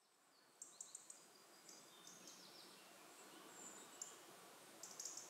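Faint woodland birdsong: small birds giving scattered short, high chirps and quick falling notes over a soft background hiss that fades in at the start.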